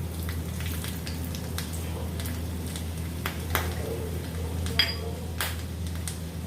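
A spoon stirring cloves, chopped garlic and ajwain in mustard oil in a pan as they fry, with scattered clicks and scrapes against the metal. One ringing clink of spoon on pan comes about five seconds in. A steady low hum runs underneath.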